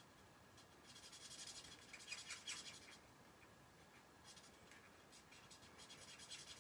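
Fine tip of an alcohol marker scratching faintly on cardstock in quick short strokes. The strokes come in two spells, the first about a second in and the second after a short pause.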